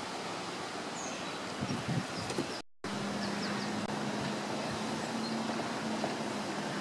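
Outdoor street ambience: a steady rushing noise with a few faint, high bird chirps. The sound drops out briefly about three seconds in, and after it a steady low hum runs under the noise.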